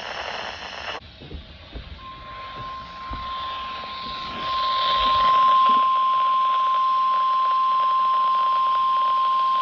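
NOAA Weather Radio warning alarm tone over radio hiss: a single steady tone of about 1 kHz starts about two seconds in, gets louder over the next few seconds, then holds steady. This tone is the alert signal that a weather warning broadcast is about to follow.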